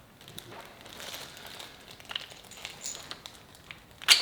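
Light clicks and rustling of engine parts being handled during a teardown, with one sharp clack about four seconds in.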